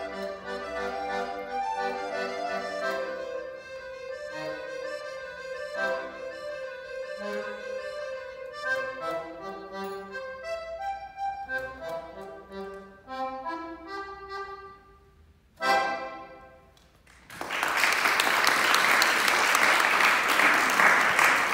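Accordion playing a brisk piece of short, separate notes and chords. It ends on a sharp accented final chord about sixteen seconds in that rings away, and audience applause breaks out a second or so later.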